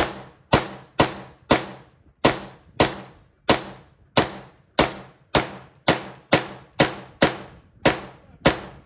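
Rapid semi-automatic 9mm pistol fire from an MPA30T fed by a ProMag 50-round drum: about sixteen evenly paced shots, roughly two a second, each ringing off the range walls, with no stoppage as the drum keeps feeding.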